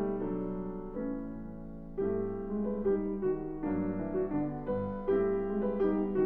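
Steinway grand piano played solo in a classical piece: a chord rings and fades about a second in, then fresh chords over a low bass line come in at about two seconds.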